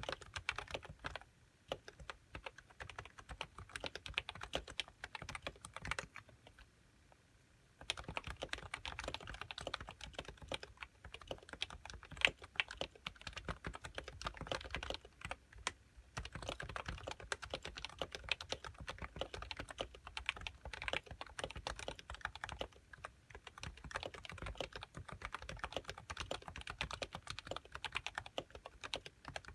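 Continuous fast typing on an HHKB Pro 1 keyboard with 45 g uniform Topre switches and HiPro keycaps. Keystrokes come in a steady rapid stream, with a pause of under two seconds about six seconds in.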